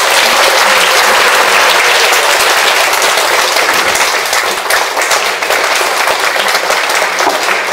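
Audience applauding: a dense, steady round of clapping that thins slightly near the end.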